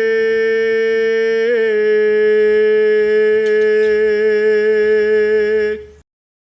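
Male voice holding one long, steady final note of a Javanese kidung chant, with a slight waver in pitch after about a second and a half. The note cuts off near the end.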